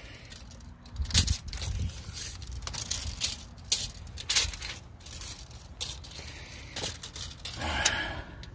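Irregular rustles and sharp clicks of hands and phone handling among dry weeds and climbing vines, with a longer scraping rustle near the end.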